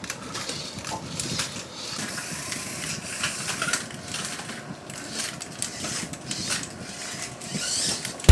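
Remote-control toy cars running on a track: the small electric motors whir, with scattered clicks and knocks from the cars' plastic bodies and wheels bumping the track and barriers.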